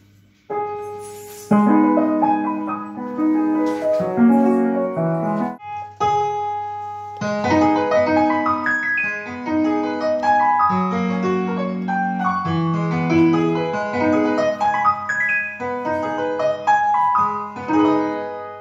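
Roland XPS-10 synthesizer keyboard played with a piano tone through a keyboard amplifier: chords and a melody of struck, decaying notes, with a short pause about six seconds in before the playing resumes.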